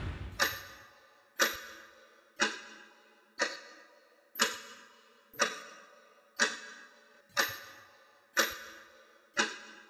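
Clock-like ticking sound effect, one sharp tick every second, each with a short ringing decay, timing out a 15-second countdown.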